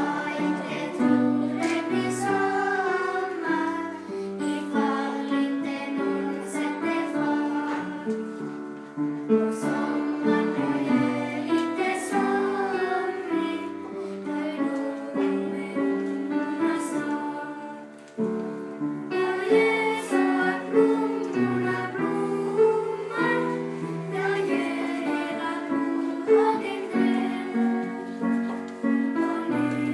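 Music: children's voices singing a melody with instrumental accompaniment, with a short lull about eighteen seconds in.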